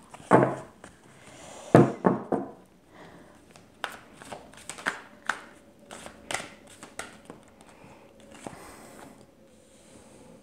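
A deck of oracle cards being shuffled by hand: two loud rustling bursts in the first couple of seconds, then a run of sharp card taps and flicks that grows quieter towards the end.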